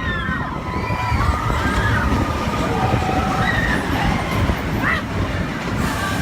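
Steady low rumble with faint voices of people around, crowd ambience in a theme-park queue.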